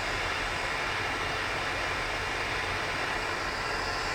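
Gas soldering torch flame hissing steadily while heating a brass joint.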